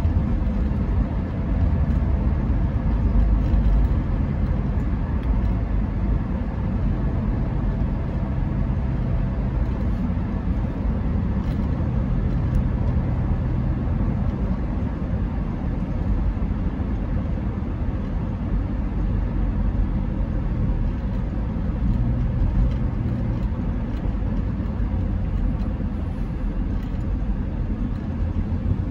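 Steady road noise from a moving car: a continuous low rumble of tyres and engine, with no sharp events standing out.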